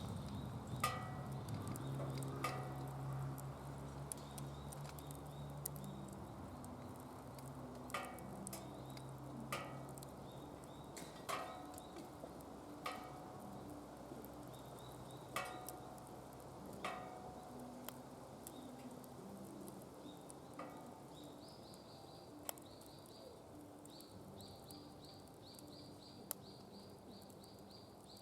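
Firewood crackling in a DOD Mechamoe Fire pit, with sharp single pops every second or two. A faint low drone of shifting tones sits underneath, and a fast high chirping comes in near the end.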